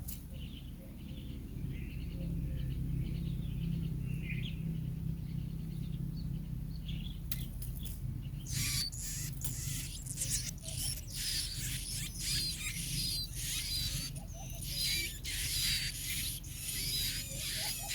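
Baby bird giving rapid, repeated high squeaky cheeps, joined from about halfway through by crackly rustling, over a steady low rumble.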